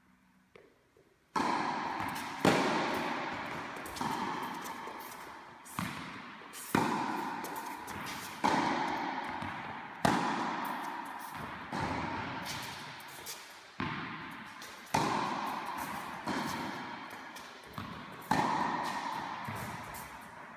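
Tennis rally: a ball struck back and forth by rackets, each hit a sharp pop every one and a half to two seconds, with a few softer knocks between. Every hit rings out in the long echo of a large indoor tennis hall.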